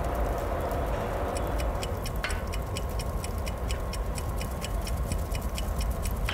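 Boiler-room furnace fire rumbling low and steady, with a fast, even ticking of about four ticks a second that comes in about a second in, and a faint steady whine that joins a couple of seconds in.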